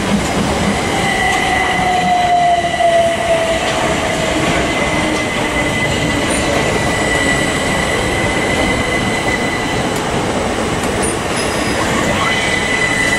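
Southern Class 377 Electrostar electric multiple unit running slowly past along the platform line, with a steady rumble of wheels on rail. A tone slides down in pitch in the first few seconds, and a steady high whine holds through the rest.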